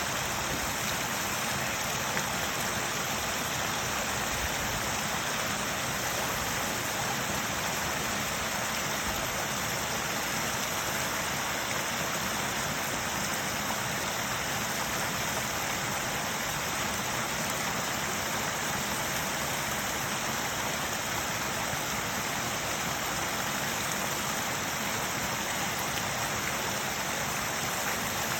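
Small woodland waterfall: water splashing and running steadily over rocks.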